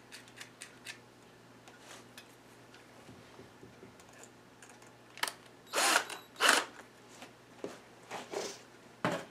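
Cordless drill run in about five short bursts, starting about five seconds in, after a few small metallic clicks of parts being handled.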